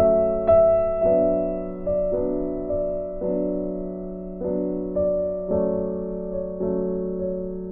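Background music: a gentle piano or electric-piano tune, notes struck about once or twice a second and left to fade over a steady held bass note.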